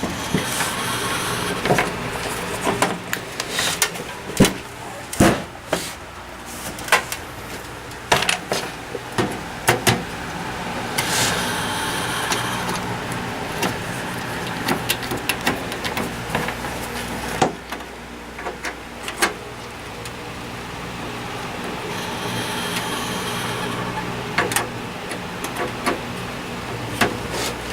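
Old desktop PC running with a steady low hum, over which come many clicks and knocks of hands handling the machine and its parts. There are a few longer stretches of hiss, near the start, about halfway through and about two-thirds of the way in.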